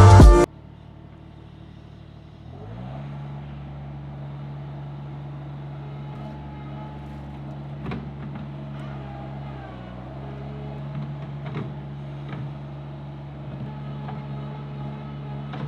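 Diesel skid steer engine coming up to speed about two and a half seconds in, its pitch rising and then settling into a steady run, with a few sharp clicks and knocks over it.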